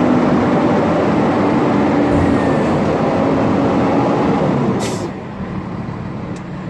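Dump truck engine running steadily under load while the hydraulic hoist raises the bed. About five seconds in there is a short hiss and the engine drops to a quieter, lower steady note.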